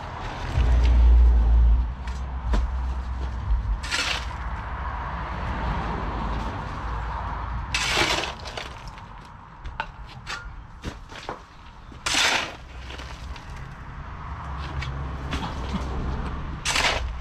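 A shovel scraping and crunching into stony soil and broken brick, one scoop about every four seconds. A loud low rumble comes about a second in.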